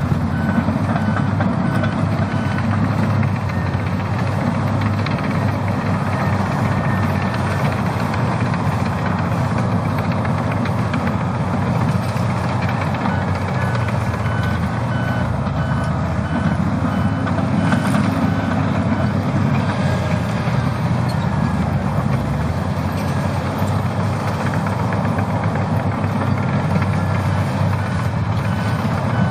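Heavy earthmoving machines, Komatsu D85 and D155 dozers and Caterpillar 657 scrapers, working with their diesel engines running steadily. A reversing alarm beeps at a regular pace through much of it, pausing for a while in the first half.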